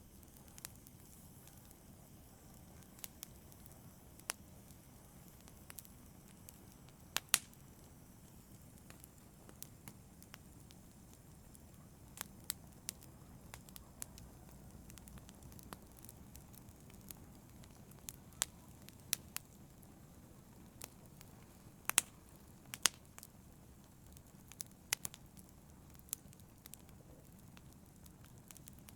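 Wood fire in a fireplace crackling: irregular sharp pops and snaps over a low steady rumble of the burning, with the loudest pops about seven seconds in and a pair near two-thirds of the way through.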